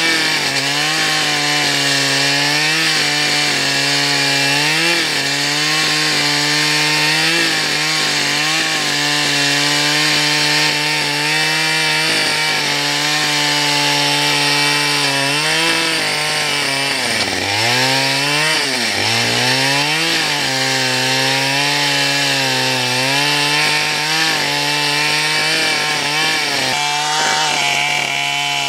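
Two-stroke chainsaw ripping lengthwise along a log, its engine held at high speed under load, with the pitch sagging sharply twice about two-thirds through as the saw bogs in the cut.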